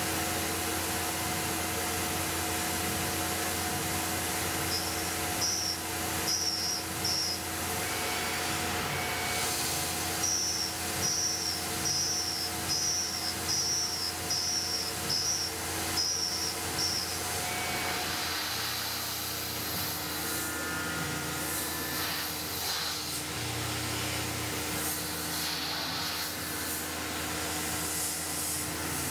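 Tormach PCNC 1100 CNC mill running a small end mill around the teeth of a metal gear, a steady machine note over the hiss of the mist coolant spray. Short high chirps come about once a second through the middle as the cutter works, and the running note changes about two-thirds of the way through.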